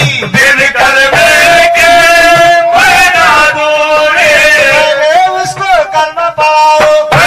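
A male voice singing a Sufi devotional kalam, holding long wavering notes, over musical accompaniment with drum strokes.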